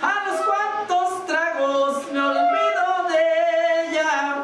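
A voice singing a melody unaccompanied, in phrases of held notes that slide into pitch, with short breaks between phrases: a banda singer rehearsing.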